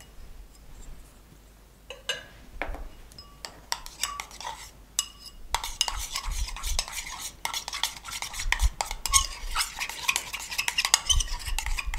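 Metal palette knife stirring red paste colour into clear piping gel in a bowl, scraping and clicking against the bowl. A few scattered taps at first, then steady, rapid stirring from about halfway.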